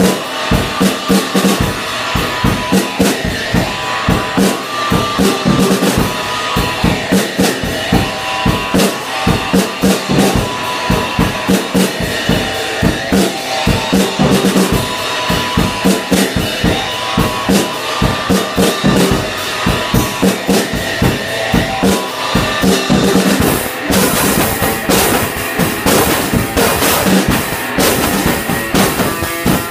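Instrumental rock played live by a duo: an electric guitar over a drum kit keeping a steady, driving beat. The cymbals grow louder and splashier about three-quarters of the way through.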